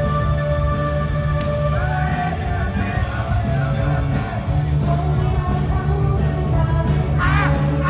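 Live pop-rock music with a steady driving low end and sung vocals, the voices entering about two seconds in and again near the end.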